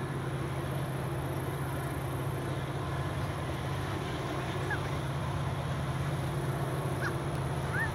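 A steady low engine rumble from a distant vehicle, growing slightly louder, with a few short high chirps in the last few seconds.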